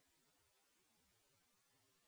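Near silence: faint hiss only.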